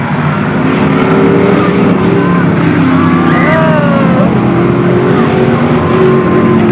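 A pack of street-stock race cars running at speed around the track, several engines at once, their pitch rising and falling as they go through the turns and pass.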